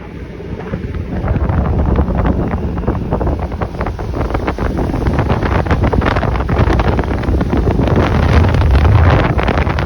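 Wind buffeting the microphone over a low, steady motor rumble, as from a boat running across the lake.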